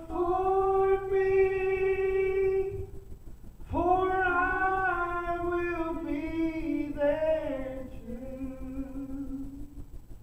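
A solo voice singing a gospel song. It holds one long note, breaks briefly, then sings a phrase with vibrato that steps down in pitch over several seconds.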